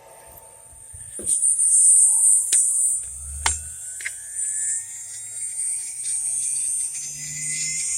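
3-horsepower CNC spindle motor spinning up after being switched on: a whine that climbs steadily in pitch, over a steady high hiss. A few clicks and a low thump come about three and a half seconds in.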